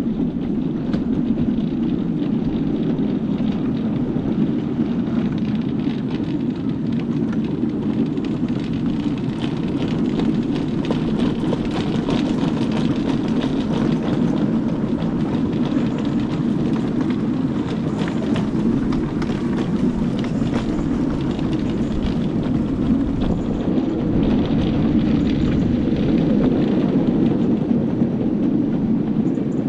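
A miniature railway train running on its track: a steady rumble that holds its level throughout, with faint clicks.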